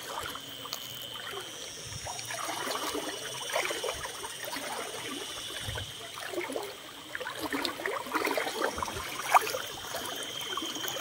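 Muddy floodwater of a swollen river flowing by, with a steady high-pitched tone above it.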